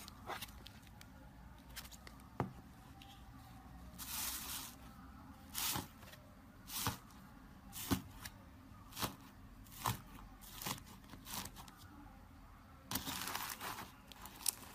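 Fingers pressing into and pulling apart a bowl of airy, foamy slime, making short crackling, tearing sounds about once a second, with longer stretches of crackle near the start and the end.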